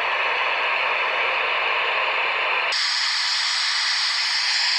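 Steady static hiss from the Ranger RCI-63FFD4 radio's receiver while it waits for a reply to a radio check. About three seconds in, the static changes abruptly to a thinner, higher hiss.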